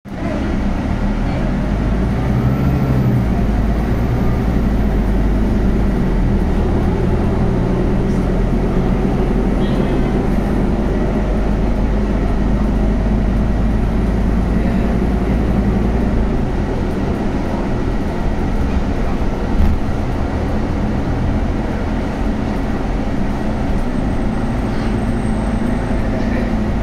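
Cabin sound of a Scania CNG articulated city bus with a ZF Ecolife automatic gearbox on the move: a steady low engine and drivetrain hum under road noise. The deepest part of the hum falls away about two-thirds of the way in, and there is a single short knock a little later.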